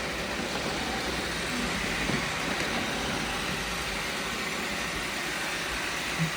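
Several robot vacuums running at once, a steady machine hum of their motors and brushes as they pick up plastic confetti, with a brief low sound near the end.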